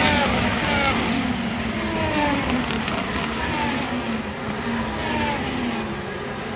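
Racing car engines going past one after another, each engine note dropping in pitch as it passes.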